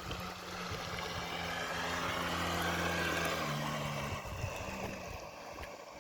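Battery-electric RC model boat running at full throttle: a steady motor hum with water noise that grows louder toward the middle, then drops in pitch and fades away.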